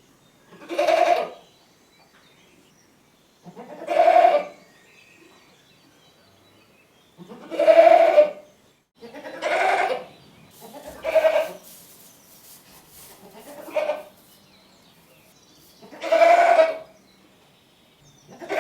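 Goat bleating: seven separate calls, each about a second long, with pauses of one to three seconds between them.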